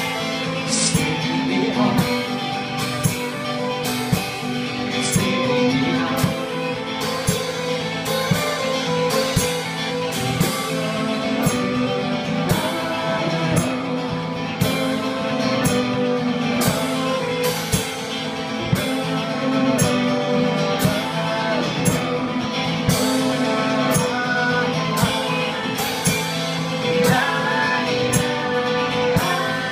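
Live folk-pop band playing a song: a woman singing lead over bowed fiddle, strummed acoustic guitar and electric keyboard, with a steady percussive beat.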